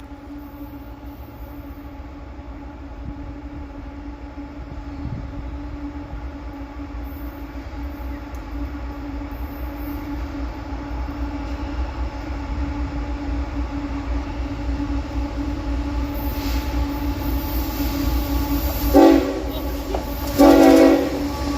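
Approaching diesel freight train, its locomotive engine rumble growing steadily louder. Near the end the lead GE ES44AH locomotive's K5HL air horn sounds two short blasts.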